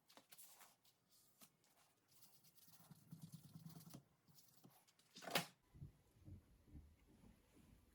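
Near silence, with faint scattered clicks and rustles and one louder click about five seconds in.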